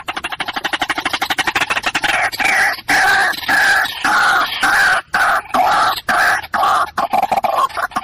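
White-breasted waterhen calling. A fast rattling run of short pulses for the first two seconds gives way to loud, repeated croaking notes, about two a second.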